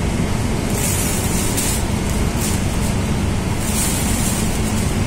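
Steady rushing of a paint spray booth's air flow. Short bursts of high hiss sound about a second in and again near four seconds.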